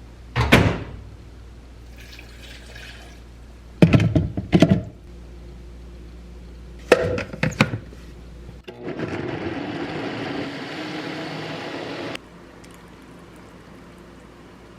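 A few sharp clatters of kitchenware being handled, then water runs steadily for about three and a half seconds and cuts off abruptly.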